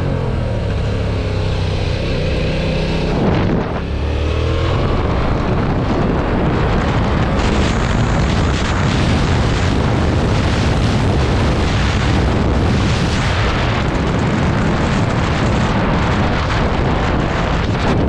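Yamaha MT-07's parallel-twin engine revving under hard acceleration, its pitch sweeping up and down for the first few seconds. About four seconds in, loud wind noise on the microphone at highway speed takes over and buries the engine.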